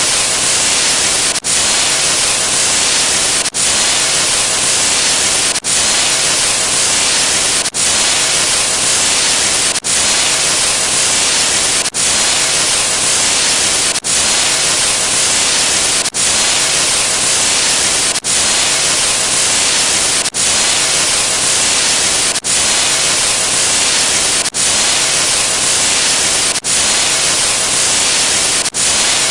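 Loud, steady static hiss like white noise, cut by a very brief break about every two seconds, as if the same noise clip restarts.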